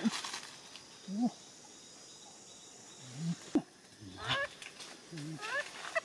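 A man's short, low grunts and groans of effort as he climbs a tree trunk, several rising sharply in pitch near the end. One sharp knock comes about halfway through.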